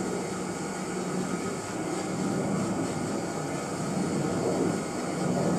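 Electrically driven model helicopter rotor, main blades carrying smaller secondary blades at their tips, spinning steadily with a low hum.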